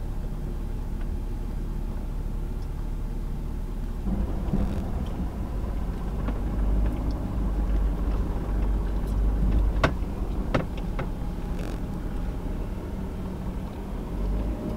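Pickup truck driving slowly, heard from inside the cab: a steady low rumble of engine and tyres that grows heavier about four seconds in, with a few sharp clicks around ten seconds.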